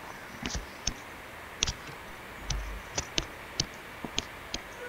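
Stylus tapping on a tablet screen while drawing: about a dozen short, irregularly spaced clicks.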